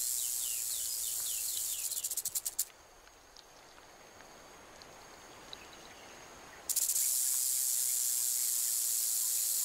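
Rattlesnake shaking its tail rattle in warning: a loud, high buzz that breaks into separate rapid clicks as it stops after almost three seconds. After a pause of about four seconds the buzz starts again abruptly.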